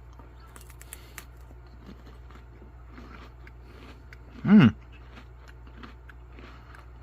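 A person eating, with faint small crunches and clicks of chewing over a steady low hum. One short voiced sound, falling in pitch, comes about four and a half seconds in.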